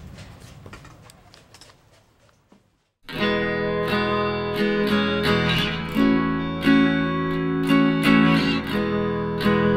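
Background music: one track fades out to near silence, then a guitar piece with strummed chords starts suddenly about three seconds in.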